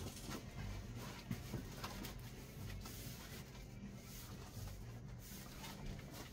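Faint scratching, rustling and scattered light knocks of a large cardboard parcel being handled and opened.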